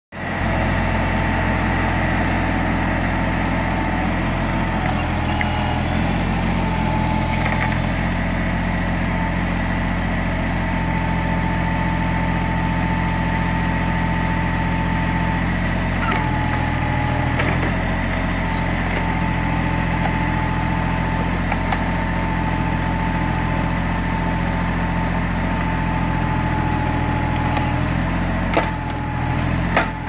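Tractor engine running steadily while powering a John Deere 7 backhoe attachment, with a steady high whine over the engine note. A few sharp knocks near the end.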